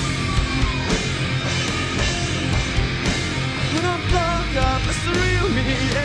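Loud rock music with steady drum hits, amplified at a live show; a voice sings a few short wavering notes in the second half.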